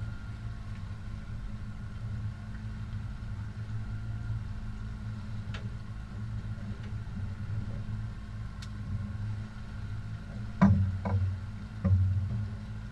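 Boat's outboard motor running steadily at low speed, a low even hum. Two short thumps come near the end.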